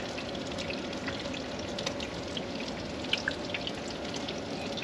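Panko-crumbed chicken frying in oil in a pan: a steady sizzle with scattered small crackles.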